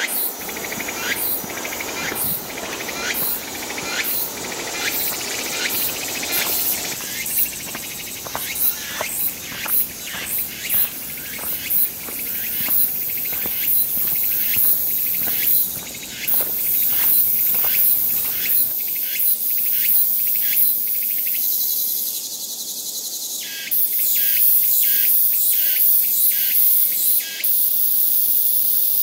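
Outdoor chorus of insects: many short, rapid chirps over a steady high-pitched buzz. The sound changes abruptly a few times, and the high buzz is louder in the last third.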